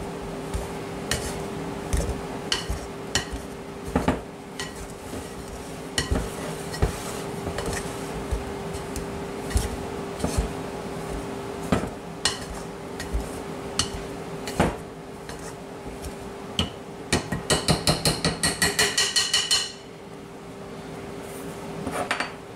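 Metal pastry blender cutting butter into flour in an enamel bowl: scattered knocks and scrapes of the blades against the bowl, over a steady low hum. Near the end, a quick run of about a dozen ringing metal clicks.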